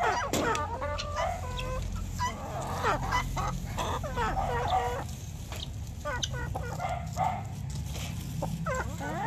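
Backyard chickens clucking, many short calls of varying pitch overlapping one another, over a steady low rumble.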